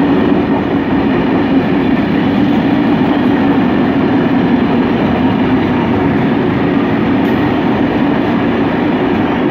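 Freight train of covered hopper wagons rolling past at speed: a loud, steady rumble of steel wheels on the rails.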